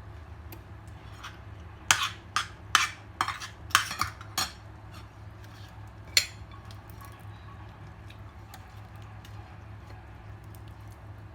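Tableware clinking: a quick run of about seven sharp clinks of a utensil against a plate, then one more a couple of seconds later, over a steady low hum.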